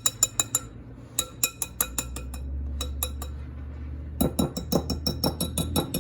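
Quick bursts of rapid clinks from a whisk knocking and scraping against a mixing bowl, several ringing taps a second, while butter and brown sugar are creamed together.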